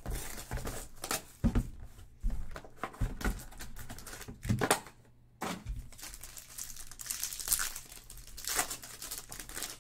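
Cardboard trading-card box being opened and handled with sharp knocks and scrapes, then a foil card pack crinkling as it is torn open near the end.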